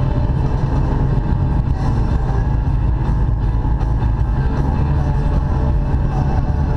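Baja powerboat's engine running at a steady cruise, a deep even rumble with water and wind noise over it.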